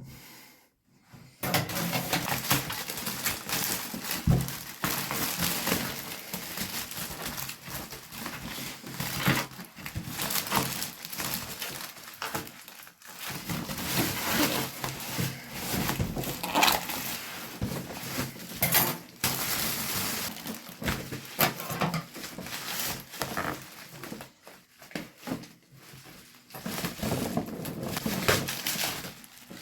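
Packaging of a boxed action figure crinkling and rustling while being handled and opened, with frequent small clicks and knocks; it starts about a second and a half in and pauses briefly twice.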